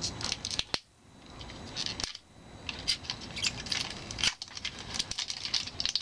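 Small packaging and containers being handled: a run of short clicks and scratchy rustles that cut off abruptly three times.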